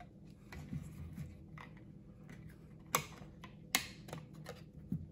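Small clicks and taps from handling the Ferrari 360 F1 gear selector unit as the retaining prongs of its back plate are released by hand, with two sharper snaps about three and four seconds in.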